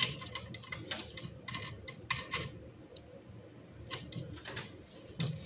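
Small metal parts clicking and knocking irregularly as a nut is fitted onto the drive gear on an angle grinder's spindle, the loudest clicks right at the start.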